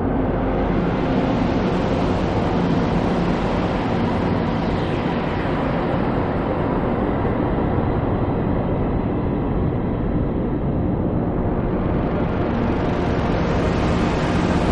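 Experimental noise music: a dense, steady wall of noise with a deep rumble underneath, its upper hiss thinning a little around the middle and filling back in near the end.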